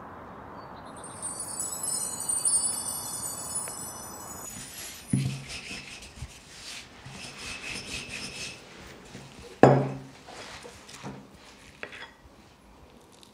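High, shimmering wind-chime-like ringing over a steady outdoor hiss for the first few seconds. The sound then cuts to a wooden rolling pin rolling out dough on a table, with rubbing and sharp wooden knocks; the loudest knock comes about ten seconds in.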